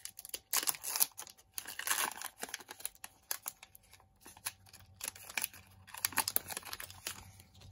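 A baseball card pack wrapper being torn open and crinkled by hand, in a series of irregular crackly tears and rustles.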